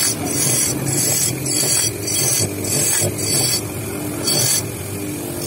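Motorcycle clutch housing being ground against a spinning wheel driven by a motor: short, high-pitched screeching contacts about twice a second, with a break near the end, over the steady hum of the motor.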